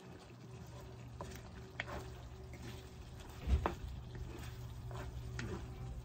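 A wooden spoon stirring thick dinuguan (blood stew) in a large aluminium wok, with about six short knocks of the spoon against the pan, the loudest about three and a half seconds in. A steady low hum runs underneath.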